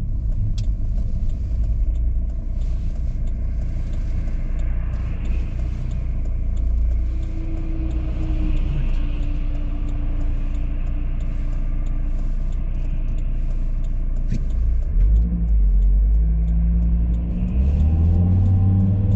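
Car engine and road noise heard from inside the cabin, a steady low rumble; in the last few seconds the engine note rises as the car accelerates.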